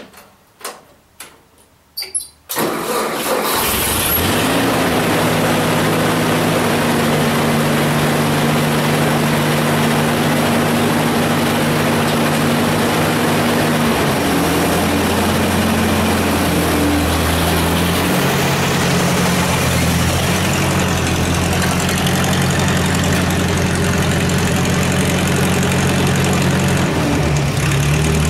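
A few knocks, then a riding lawn mower's engine starts about two and a half seconds in and keeps running steadily, its note stepping up or down a few times.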